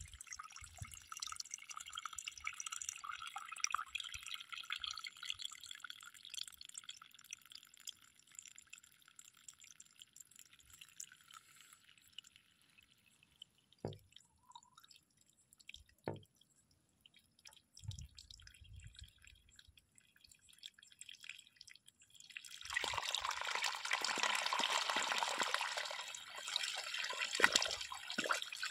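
Water splashing from a borewell's PVC outlet pipe into a muddy channel, dying away to a near-quiet lull partway through, then surging out again loudly about 22 seconds in. The flow is coming and stopping in spurts because the bore is short of water.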